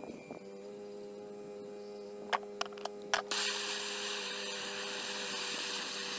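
A steady electrical hum throughout; a little over two seconds in come four sharp clicks, followed by a loud, steady hiss that lasts about three seconds and cuts off suddenly.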